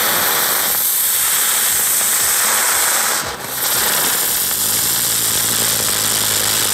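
Crazy Bees ground spinners, small youth-category fireworks, burning on the ground with a loud, high hissing rush of sparks. The hiss dips briefly about three seconds in, then comes back until near the end.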